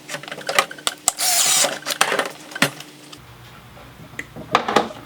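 Power drill with a 3/8 socket running in short bursts to drive the nuts onto a skateboard truck's mounting bolts, followed by a few sharp clicks of the hardware and tool being handled.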